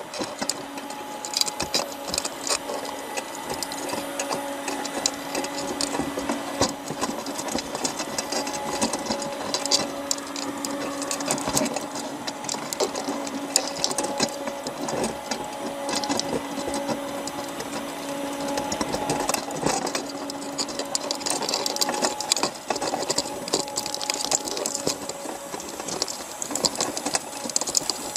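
Underwater sound inside a wire crab trap: dense, irregular clicks and scrapes as crabs clamber over the mesh and bait, over a steady low hum.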